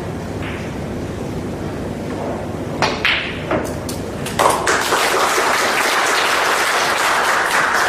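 A few sharp clicks, then an audience breaks into applause about four and a half seconds in, clapping steadily to the end.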